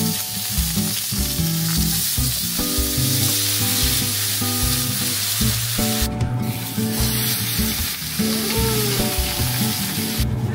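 Gyoza frying in oil and water on an electric griddle pan: a steady hissing sizzle, which breaks off briefly about six seconds in. Background music plays underneath.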